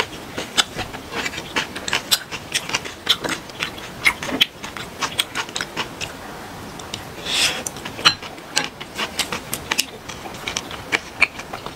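Close-miked eating sounds: irregular crisp clicks and crunches of chewing, mixed with chopsticks and a spoon clicking against a glass bowl, and a short hiss about seven seconds in.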